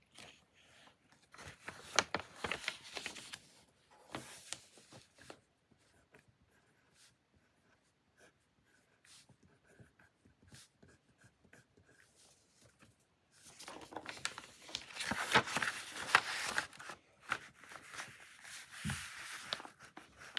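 Writing on paper in two spells of scratchy strokes and small clicks: a short one a couple of seconds in and a longer one from about two-thirds of the way through, with only faint ticks between.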